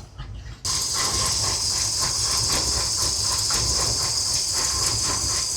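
Big-block Chevy V8 idling as it warms up, heard close-up: a loud steady hiss with a faint fast, even pulsing through it, cutting in suddenly about half a second in.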